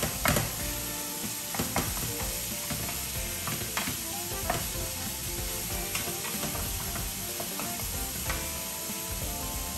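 Sliced smoked meat frying in a nonstick frying pan, sizzling steadily, while a spatula stirs it and scrapes and taps against the pan now and then.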